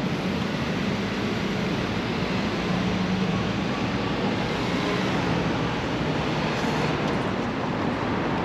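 Steady outdoor background noise: a low rumble with a hiss over it and no distinct events.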